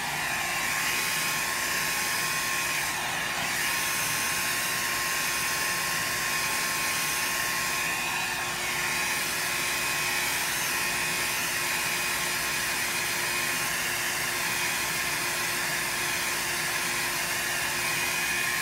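Handheld electric dryer running steadily, a constant motor whine over a rush of air, blowing alcohol ink across synthetic paper to spread and dry it; it cuts off right at the end.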